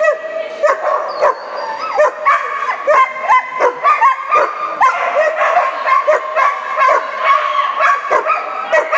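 A dog barking nonstop in quick, high-pitched yips, about three barks a second.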